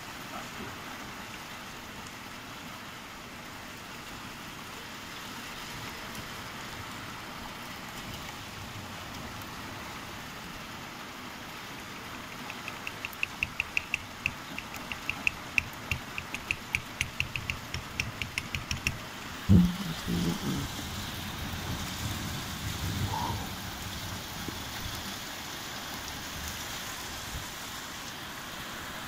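Steady rain, with a run of fast clicks for several seconds midway, then a sudden thump followed by a low rumble.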